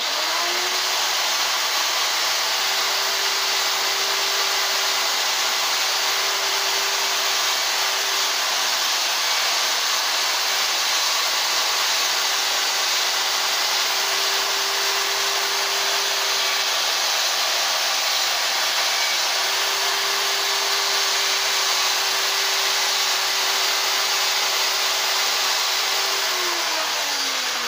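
Electric chainsaw running steadily while cutting small feather hash marks into a wooden owl carving. The motor spins up at the start, holds one even pitch, and winds down near the end.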